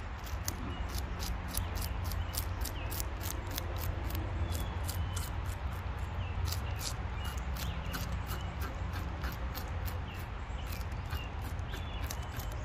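Fish scales being scraped off a whole white bass with a fork on a plastic cutting board: a steady run of crisp scraping strokes, about three or four a second. Faint bird chirps sound now and then behind it.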